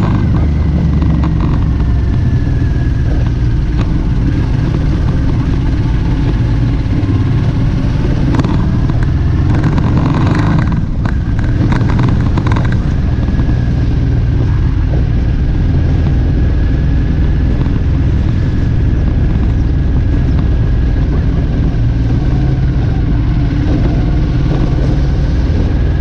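Motorcycle riding at road speed: engine running steadily under heavy wind rush on the microphone, with a few short knocks or buffets between about eight and thirteen seconds in.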